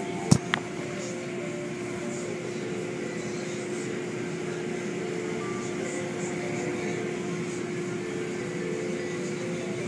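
Automatic car wash heard from inside the car's cabin: a steady rush of water spray and cloth wash strips sweeping over the windshield, with a steady hum under it. Two sharp knocks come about a third and half a second in.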